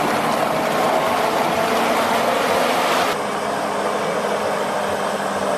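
A heavy machine's engine running steadily under load. About three seconds in, the hissing upper part of the sound drops out abruptly, and the engine continues a little quieter.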